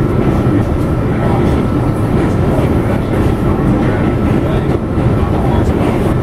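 Loud, steady rumble of an R46 subway car running through the tunnel, heard from inside the car.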